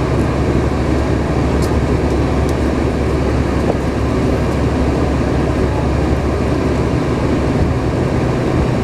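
Steady cabin rumble of a Boeing 747-436 on the ground before takeoff, its Rolls-Royce RB211 engines running at idle thrust.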